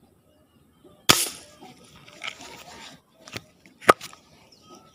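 A sharp snap of a line-tethered fishing shot being fired, followed by a rustling hiss for a second or two, then two clicks, the second one sharp; the shot hits the fish.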